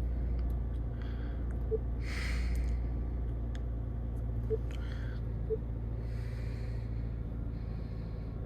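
Subaru flat-four engine idling steadily just after a cold start, with the knock the owner describes as 'gong, gong, gong'. A short breathy rush is heard about two seconds in.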